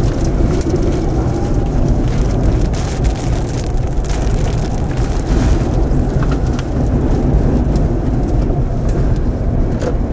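Strong winds of a nearby tornado rushing and buffeting with a steady low rumble, with scattered ticks of blown dirt and debris striking.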